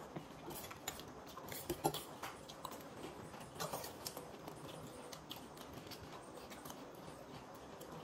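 Faint, irregular small crunches and clicks of people eating chatpate, a crunchy spiced puffed-rice snack.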